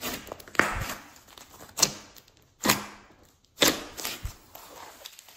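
Hands squeezing and pressing a large mass of glossy slime: four loud wet squelches, about one a second, with softer sticky crackling between them.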